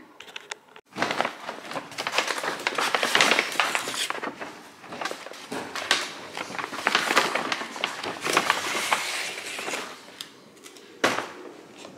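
A takeout bag crinkling and rustling as it is opened and food is taken out. It starts about a second in and eases off near the end.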